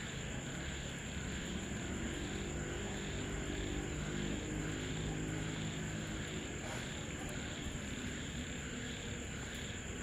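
Steady night chorus of insects and crickets, a pulsing chirp about twice a second over a high steady trill. Between about two and seven seconds in, a faint low drone comes from the approaching GEA-class diesel locomotive.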